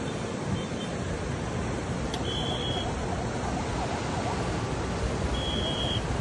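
Steady rushing of water, with two short high-pitched beeps about three seconds apart.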